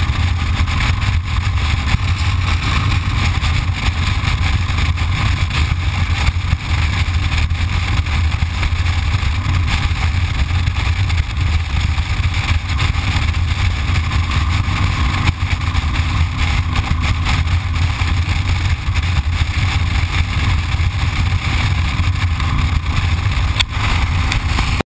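Motorcycle engine running steadily at highway cruising speed, a constant low drone mixed with wind and road noise, heard from the handlebar-mounted camera.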